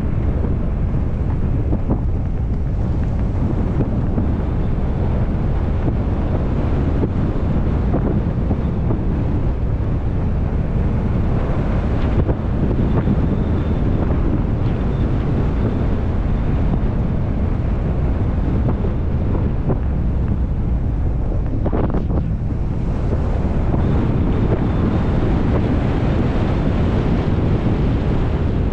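Steady wind buffeting a hood-mounted GoPro microphone on a Ford Bronco driving a dirt trail, a dense low rumble that covers the sound of the truck itself.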